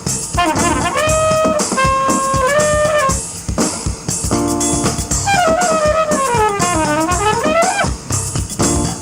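Trumpet playing a melody over a drum beat: rising notes into held tones, then a fast run stepping down and back up about five to eight seconds in.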